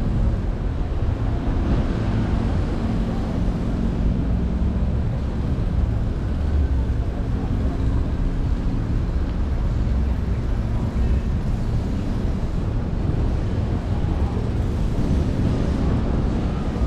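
A car driving along a city street: a steady, low rumble of engine and road noise.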